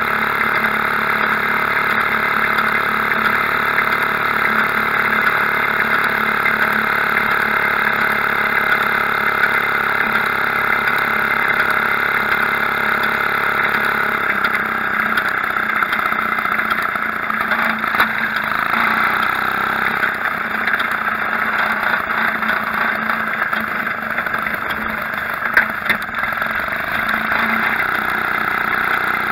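Maytag Model 72 twin-cylinder two-stroke washing-machine engine running steadily as it drives a homemade motor bicycle along, its note shifting about halfway through.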